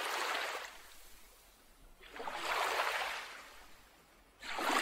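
Sea waves washing in, three surges of rushing water noise about two seconds apart, each swelling and then falling away.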